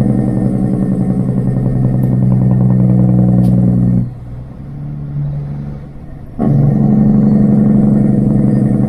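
Straight-piped Kenworth W900 semi truck's diesel engine pulling down the highway, a loud, steady exhaust drone with a fast rattle in it. About four seconds in it drops away to a quieter, lower note for a couple of seconds, then comes back on sharply.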